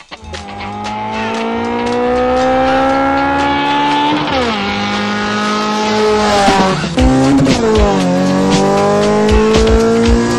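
Ported Honda D16A6 SOHC four-cylinder accelerating hard through the gears, revving out toward 8000 rpm. The pitch climbs steadily, drops sharply at an upshift about four seconds in, climbs again, drops at a second shift about seven seconds in, then climbs once more.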